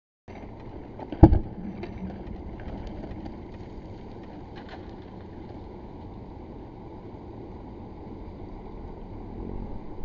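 Two Rocky Mountain bighorn rams' horns smashing together head-on in a rutting dominance clash: a single sharp, loud crack about a second in, over steady low background noise.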